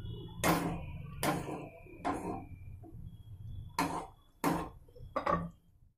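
Wooden spatula stirring chicken curry in a non-stick kadai, knocking and scraping against the pan about six times. The sound cuts off suddenly near the end.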